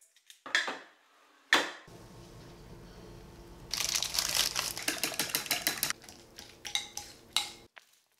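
Kitchen utensil and dish sounds: two sharp knocks, then a steady hum with a stretch of dense clattering and scraping over it in the middle and a few clicks near the end.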